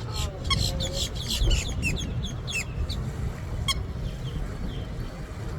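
Birds calling in a rapid series of short, downward-sliding chirps, thick for the first few seconds and then a single chirp later on, over a low rumble.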